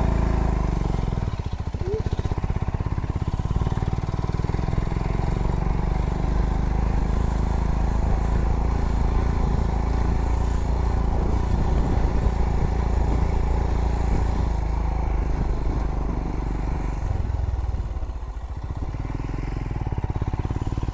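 Royal Enfield Himalayan's single-cylinder engine running at low revs under load, a steady thudding of exhaust pulses, with a brief easing of the throttle about three-quarters of the way through.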